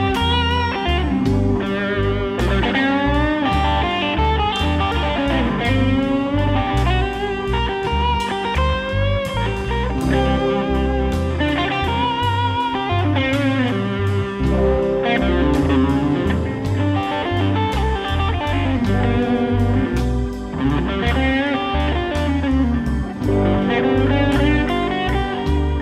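A live band playing slow blues: a lead electric guitar plays bent, wavering notes over bass, drums and keyboard.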